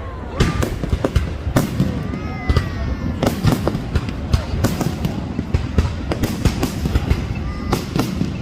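Fireworks going off: many sharp bangs and crackles in quick succession, several a second, over a steady low rumble.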